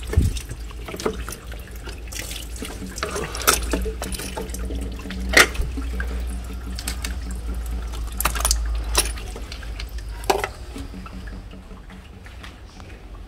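Fluid draining and trickling from a disconnected hose in an engine bay, with several sharp clicks and knocks of hoses and fittings being handled.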